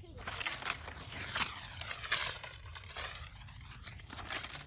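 Dry leaf strips crackling, crumpling and tearing as they are handled, in a string of short dry rustles, the loudest about a second and a half and two seconds in.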